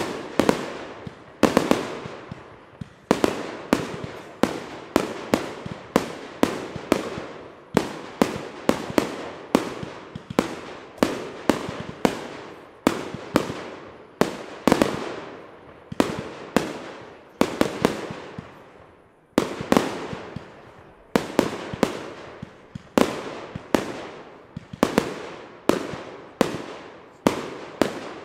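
Aerial firework shells bursting in steady succession, about two sharp bangs a second, each trailing off in echo.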